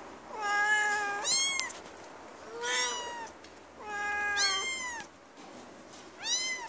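High-pitched mewing cries from the young nursing in the litter, about six calls in four bouts: some long and level, others short, rising then falling.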